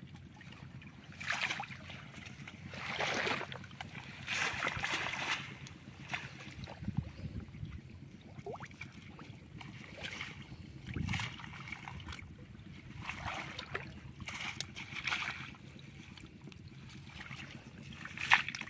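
Shallow water splashing and sloshing on and off as people wade through it and lift a mesh fishing net out of it, the swells coming every second or two.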